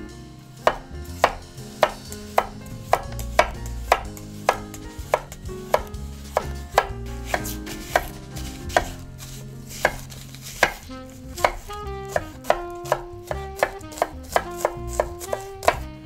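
Kitchen knife slicing and chopping a red onion on a wooden cutting board, the blade knocking the board in a steady rhythm. The knocks come about every half second, then quicken to about three a second near the end.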